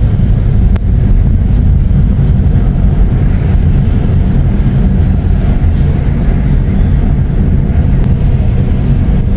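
Steady low rumble of a car's engine and tyres, heard from inside the cabin while driving slowly along a street.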